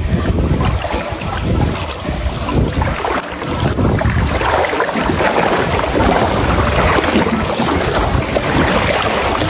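Wind buffeting the microphone: a loud, uneven rushing noise.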